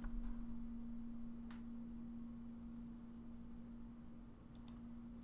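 A steady low hum on a single tone, with a sharp click about a second and a half in and a soft mouse click near the end as the Next button is pressed.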